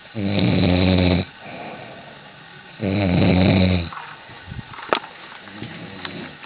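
A person snoring loudly: two long snores, each about a second, roughly two and a half seconds apart, with quieter breathing between them. There is a sharp click about five seconds in.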